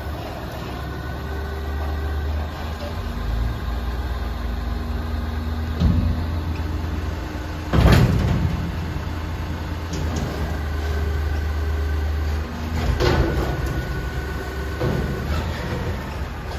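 Front-loader garbage truck's engine running and its hydraulic lift arms working as the forks raise a steel commercial bin over the cab and tip it into the hopper, with a steady hum and whine. Metal clunks and bangs come from the bin and arms, the loudest about eight seconds in and more near the end as the bin turns over.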